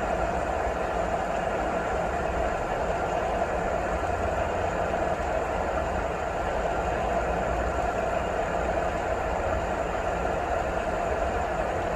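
Steady, unbroken rain noise with a low rumble underneath.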